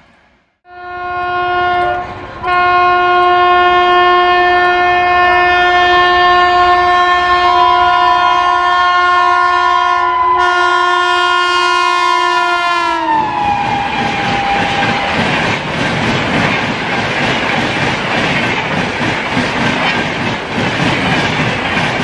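WAP-5 electric locomotive's horn: a short honk, then a long held blast that drops sharply in pitch as the locomotive passes about thirteen seconds in. It is followed by the loud rush and clatter of the Shatabdi coaches passing at about 150 km/h.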